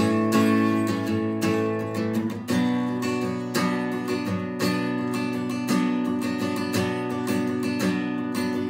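Acoustic guitar strummed in a slow, steady rhythm, with a change of chord about two and a half seconds in.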